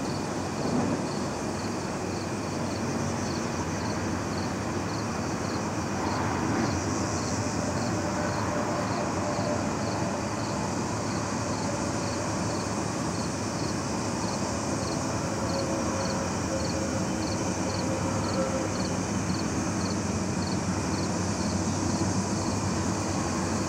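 Steady hum of distant town traffic, with a faint high chirp repeating about twice a second throughout.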